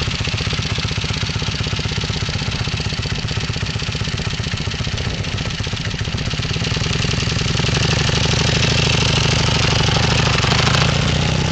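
Motorcycle engine running steadily at low speed in first gear, growing louder about two-thirds of the way through and easing off near the end.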